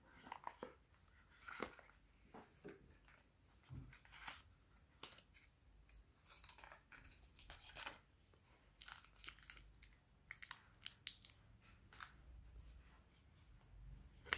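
Faint, irregular rustling, scraping and tapping of a smartwatch's cardboard box being unpacked by hand: the sleeve slid off, the lid lifted and the plastic-wrapped watch and cable handled.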